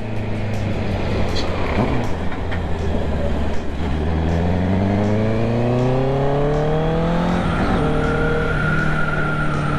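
Honda CB650R's inline-four engine under way: it holds a steady pitch, then revs climb steadily under acceleration from about four seconds in. About seven and a half seconds in the pitch drops at a gear change, then steadies in the next gear.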